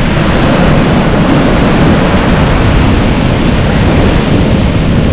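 Sea surf breaking and washing over the shallows, with wind buffeting the microphone in a steady, loud rush.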